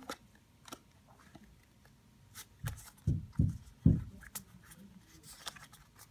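Pokémon trading cards handled in the hands: cards slid and moved between stacks with light clicks and brief rustling scrapes. Three dull thumps come about three to four seconds in.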